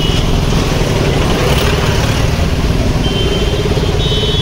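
Road traffic in a slow jam: car and motorbike engines running with a steady rumble. A thin, high, steady tone comes in about three seconds in.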